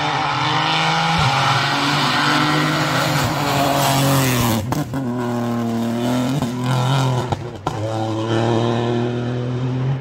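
Rally car engine under hard acceleration, revving up through the gears with short breaks at the gear changes about five and seven and a half seconds in.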